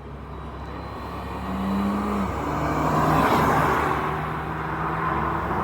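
A car driving past with its engine running: the sound builds to a peak about three seconds in, then eases off.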